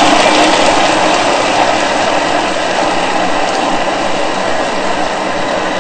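Thermomix food processor running at high speed, its blades chopping a thick mixture of soaked dried chickpeas, garlic and spices while a spatula pushed through the lid opening works the mixture onto the blades. A loud, steady mechanical noise.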